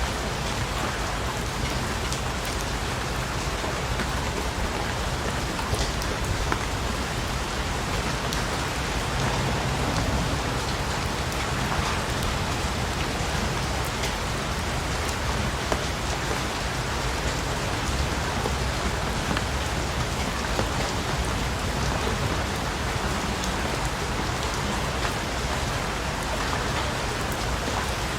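Steady rainfall, a dense even hiss of rain on surfaces with scattered individual drops ticking through it.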